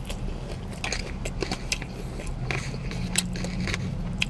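Close-up chewing of a mouthful of salad, with scattered crisp crunches and clicks.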